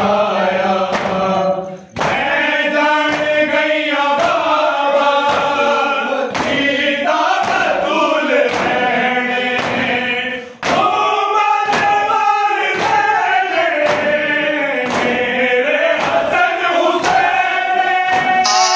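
A group of men chanting a noha, a Shia lament, in unison, with rhythmic chest-beating (matam): open hands striking chests in regular thumps that keep time with the chant.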